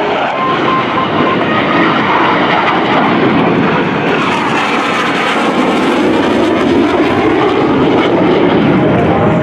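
Jet noise from a Blue Angels F/A-18 Hornet's twin General Electric F404 turbofans as it flies past overhead and away. The noise is loud and continuous, swells slightly and shifts in pitch as the jet passes, about halfway through.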